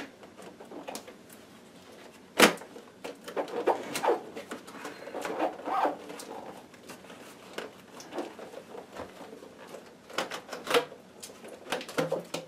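Plastic clicks, knocks and rubbing as a replacement side pad is pushed and worked into place on a Ninebot One electric unicycle's plastic shell, its tabs being seated. One sharp knock stands out a couple of seconds in, with clusters of smaller clicks after it and again near the end.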